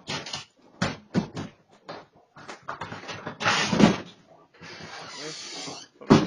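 A door being pushed open by a bear: a run of knocks and rattles, loudest about three and a half seconds in. A steady hiss follows for over a second, then another knock near the end.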